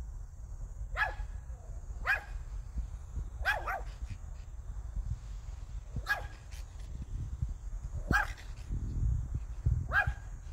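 Pomeranian barking: short single barks a second or two apart, seven in all, with two in quick succession about three and a half seconds in.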